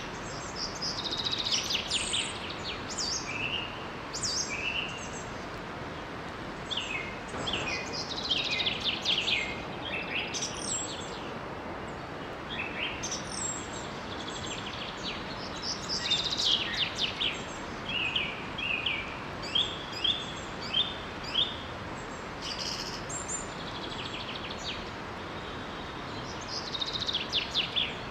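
Several songbirds singing and chirping in quick trills and repeated calls, among them a run of five evenly spaced notes about two-thirds of the way through, over the steady rush of a small forest waterfall.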